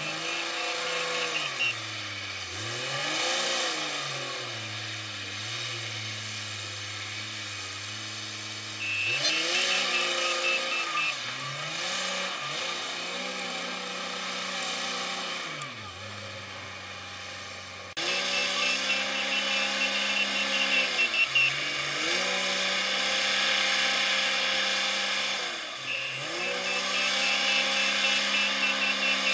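Komatsu WA350 wheel loader's diesel engine revving up and dropping back again and again as it shuttles at a sand pile. Its reverse alarm sounds in rapid high beeps four times as it backs up, a backing sound the uploader calls somehow strange.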